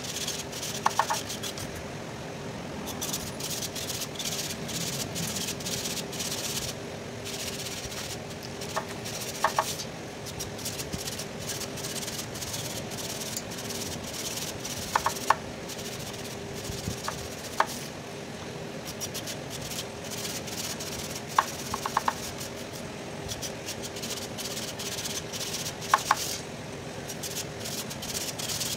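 A thin wire tool scraping and rubbing along the tube ends of an Isuzu truck radiator core, with a few sharp metallic tinks spread through it. A steady hum runs underneath.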